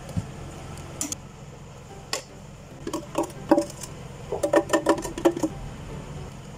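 Scattered clinks and knocks of cups and utensils at a drinks stall, over a steady low hum, with two short flurries of pitched rattling about three and four and a half seconds in.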